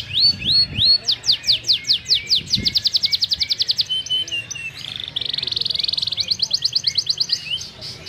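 Domestic canary singing a varied song. Separate whistled notes sweeping in pitch speed up into fast trills, with a buzzy rolled passage about five seconds in and another fast trill after it.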